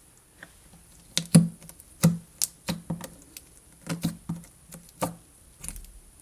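Hands handling a plastic slime container, giving a series of irregular sharp clicks and taps as the lid is worked open.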